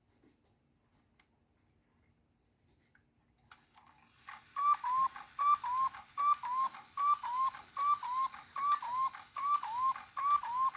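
Rebuilt cuckoo clock striking: faint ticking, then about three and a half seconds in the strike train whirs into motion and the bellows pipes give the two-note cuckoo call over and over, about nine calls at a steady pace of a little more than one a second. The bellows sit slightly off their best position, but the calls still come out clearly.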